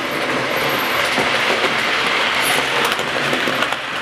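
00 gauge model train running past close by: a steady rattle of the motor and wheels on the track, with a few sharp clicks near the end as the wheels cross rail joints.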